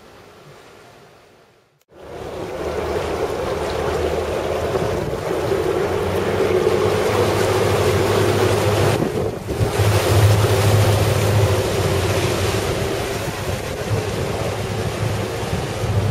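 Motorboat under way: a steady low engine hum under wind on the microphone and rushing water. It comes in suddenly about two seconds in, after a quiet opening.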